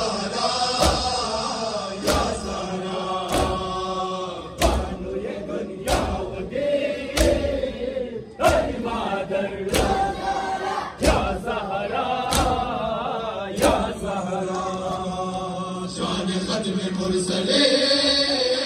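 Men chanting a nauha, a Shia mourning lament, in a melodic, drawn-out style. Over it, a crowd of men beat their chests with their hands in unison (matam), one loud slap about every second and a quarter. The slapping stops about fourteen seconds in while the chanting goes on.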